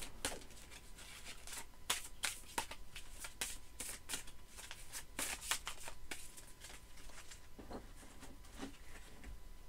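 A new deck of matte, fairly thin oracle cards being shuffled by hand: quick papery flicks and slaps of cards against each other, dense for about six seconds and then thinning out as the deck is squared.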